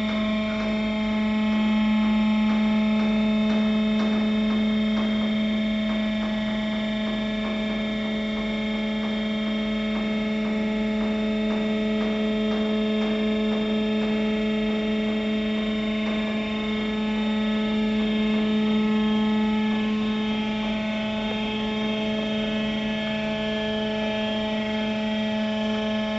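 Steady machine hum: one constant low tone with a stack of overtones that holds unchanged throughout, from the wood transport system and treatment plant machinery.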